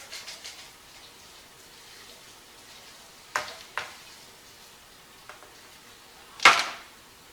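A few sharp knocks over a faint hiss: two close together about halfway through, then a much louder one near the end.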